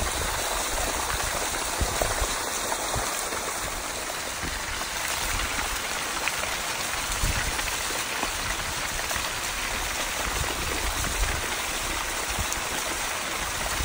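Steady rushing hiss of lake water and wind on the microphone, with an uneven low rumble and a few brief louder moments as a trout is grabbed by hand in the shallows and lifted out.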